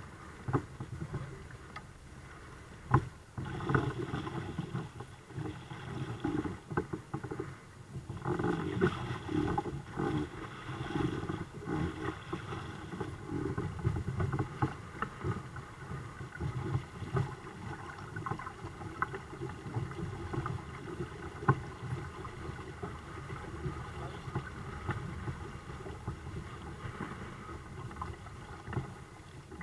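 Water lapping and slapping against the twin kayak hulls of a small sailing catamaran under way, with a few sharp knocks, the loudest about three seconds in and again about three-quarters through.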